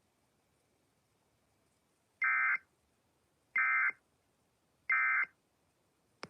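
Emergency Alert System end-of-message data bursts: three short, identical bursts of shrill digital tones about 1.3 seconds apart, closing the severe thunderstorm warning broadcast. A short click follows near the end.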